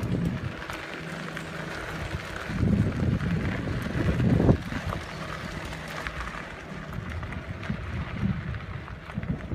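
Wind buffeting the microphone while riding a bicycle on a dirt road, over the rumble of the tyres on the dirt. The buffeting is heaviest from about two and a half to four and a half seconds in.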